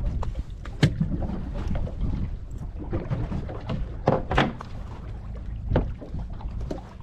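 Low rumble of a small boat at sea, with a few sharp knocks and clatters on the deck as a small tuna is handled and laid down, the loudest pair about four seconds in.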